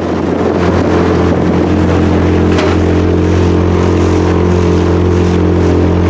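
Small boat's outboard motor running steadily under way, a constant low engine hum that builds briefly at the start and then holds level, with rushing water and wind noise over it.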